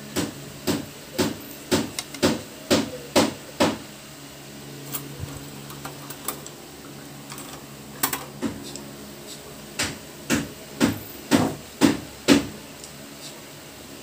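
Sharp knocks at an even beat of about two a second: a run of eight in the first four seconds, a pair near eight seconds, then another run of six, over a low steady hum.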